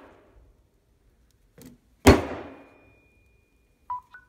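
A rock striking a Samsung smartphone's glass screen as it lies on a concrete floor: one hard smash about two seconds in, with a short ringing decay, after a light tap. Near the end come a thin steady tone and two brief electronic beeps.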